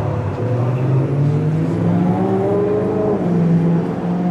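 A car engine accelerating, its pitch rising steadily for about two seconds, then dropping back about three seconds in and holding.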